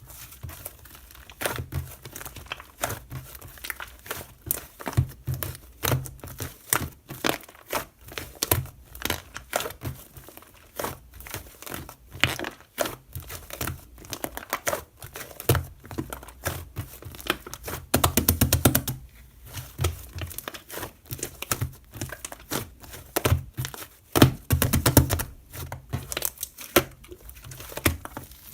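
Crinkling and crackling handling noise made of a steady stream of sharp clicks. Twice, about two-thirds of the way through and again near the end, it turns into a short run of fast, even tapping.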